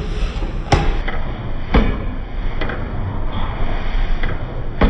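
Hydraulic forging hammer striking a red-hot steel block on its anvil: a handful of sharp blows about a second apart, over the hammer's steady low running rumble.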